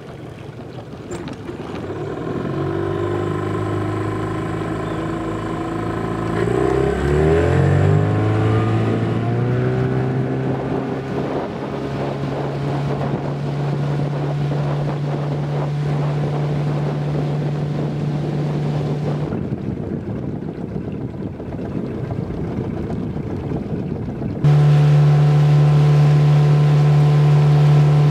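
Boat's outboard motor running, revving up in pitch about six to eight seconds in as the boat gets under way, then holding a steady pitch at speed. Near the end it abruptly becomes louder.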